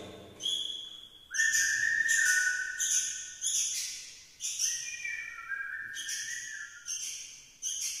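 A young sooty-headed bulbul calling over and over, short sharp calls about once a second: the begging calls of a hungry fledgling. Two long, steady whistled notes that step down in pitch run through the calls.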